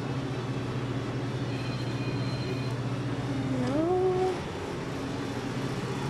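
Steady low hum of a shop's background noise. A little under four seconds in comes one short rising voice sound, like a questioning "hm".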